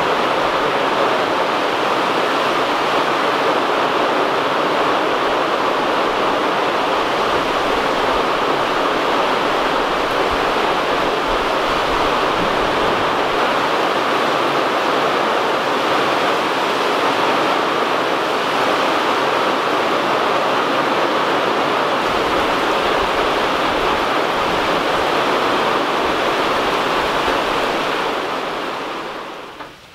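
Heavy rain pouring down on the forest and streaming off the roof edge: a steady hiss that fades out over the last couple of seconds.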